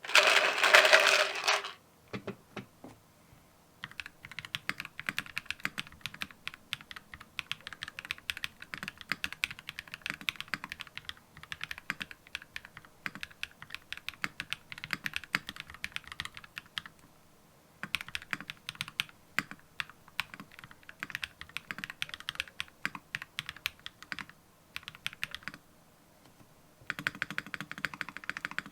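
Fast typing on a gasket-mounted IKKI 68 mechanical keyboard with lubed Durock POM switches and doubleshot ABS keycaps: runs of rapid keystroke clicks broken by short pauses, after a brief louder burst at the very start.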